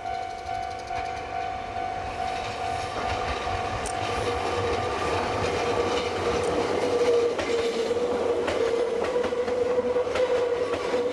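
A Japanese level-crossing alarm rings on and on while a Kobe Electric Railway train runs over the crossing. The train's wheels clack over the rail joints with sharp clicks from about four seconds in, under a low rumble.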